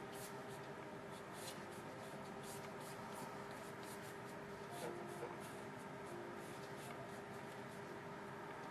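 Faint, scratchy strokes of a paintbrush across watercolour paper, a few irregular strokes a second, over a steady low hum.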